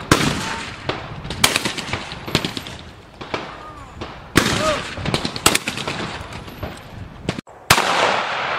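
Shotgun shots fired at clay targets, a quick series of sharp reports about one a second, some in close pairs, each with a short echo trailing off.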